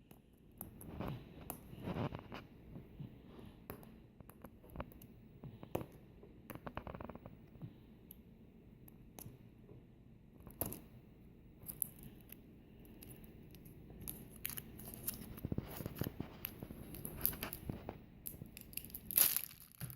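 Quiet, scattered clicks, scrapes and rustles of hands working at a hard-to-open surprise egg, trying to get it open.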